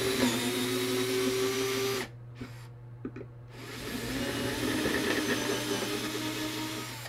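Cordless drill running a bit through a wooden block to ream out bolt holes, in two runs: about two seconds, a pause of a second and a half with a few small clicks, then about three seconds more.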